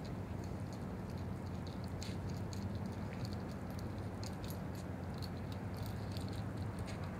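Faint, irregular jingling and light clicking from a Boston terrier's collar and leash hardware as the dog moves and sniffs around a truck, over a steady low hum.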